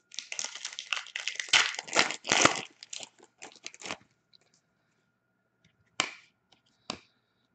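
Wrapper of a hockey card pack being torn open and crinkled for about four seconds, then two sharp clicks.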